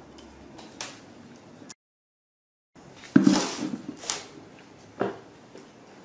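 Aluminium rice pot knocking and scraping on a metal table as a monkey digs into the cooked rice with its hand: a loud clatter about three seconds in, then two shorter knocks. Before it there is a second of dead silence.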